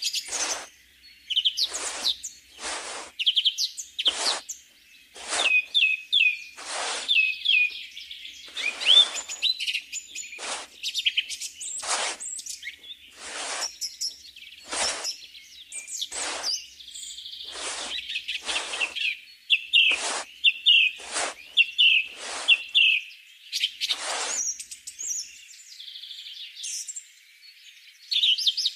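A small shovel scraping through sand in short strokes, roughly one a second, over steady birdsong chirping.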